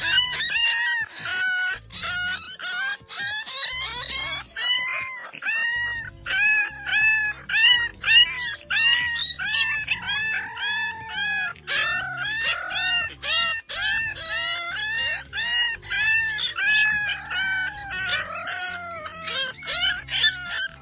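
French bulldog puppy yelping over and over in short, high-pitched cries that rise and fall, two or three a second.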